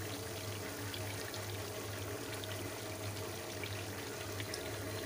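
Chicken pieces and whole tomatoes sizzling in hot oil in a karahi: a steady hiss with scattered small pops and crackles.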